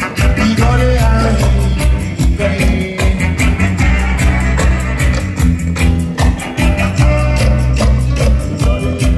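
Jamaican sound system playing music loud, with a heavy bass line, a steady drum beat and a sung vocal.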